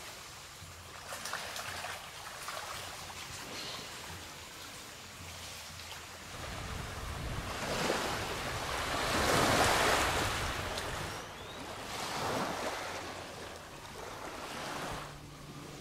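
Wind and small waves washing onto a sandy lagoon shore, the hiss swelling and fading, loudest about nine to ten seconds in, with wind rumble on the microphone.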